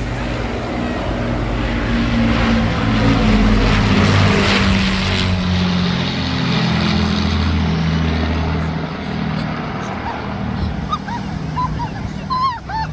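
Avro Lancaster's four Rolls-Royce Merlin piston engines droning as the bomber passes, loudest about four seconds in, the pitch dropping slightly as it goes by and then easing off. A few short high calls sound near the end.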